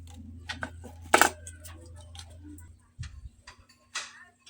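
A series of light clicks and knocks of small hard objects being handled, the loudest about a second in, over a low steady hum that stops a little before three seconds in.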